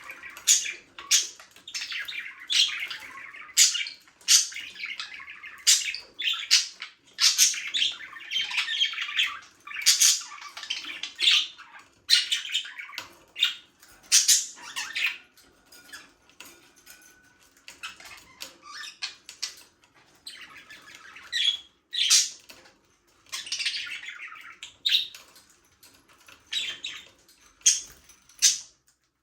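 A flock of budgerigars chirping and squawking: many short, sharp calls in quick succession with warbling chatter between them, thinning out in the second half.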